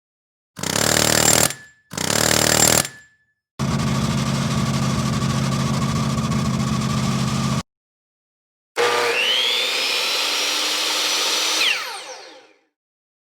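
A run of separate sound effects: two short noisy bursts, then about four seconds of steady motor buzz, then a motor whine that rises in pitch, holds and dies away with a quick falling sweep.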